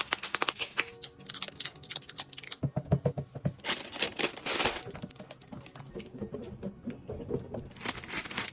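A rapid, irregular run of sharp clicks and knocks, as of small hard objects being handled and set down, with some crinkling; it thins out for a couple of seconds past the middle.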